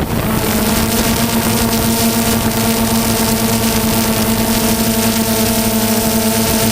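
An engine running steadily at a constant, fairly high pitch, loud and even.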